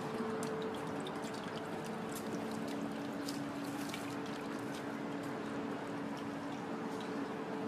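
Steady outdoor ambience: an even trickling, water-like hiss with a constant low hum and scattered faint ticks.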